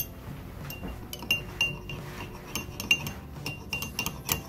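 Metal teaspoon stirring in a drinking glass, clinking against its sides in a quick, irregular run of short ringing clinks.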